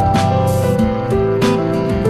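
Background music: a melody over plucked, strummed guitar.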